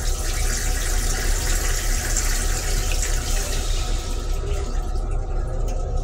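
Railcar toilet flushing: blue flush fluid rushes and hisses into the bowl, fading out about four and a half seconds in, over a steady low rumble.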